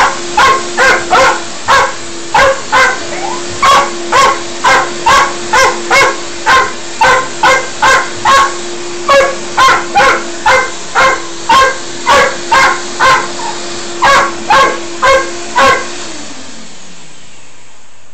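Dog barking rapidly and repeatedly at a running vacuum cleaner, about two barks a second, over the vacuum motor's steady hum. The barking stops near the end as the motor's tone falls in pitch, winding down.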